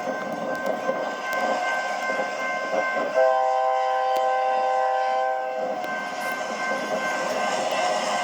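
Train horn sounding one chord of several tones for about two and a half seconds, starting about three seconds in, over the steady noise of a moving train.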